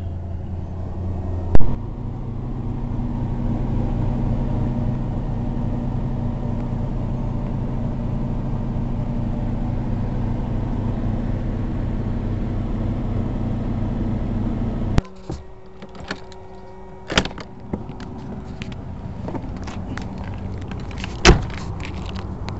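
Motorhome engine idling steadily, run to charge a weak ignition battery, with a sharp knock about a second and a half in. The engine sound cuts off abruptly about fifteen seconds in, giving way to scattered clicks and knocks and one loud bang near the end, like a compartment door latching.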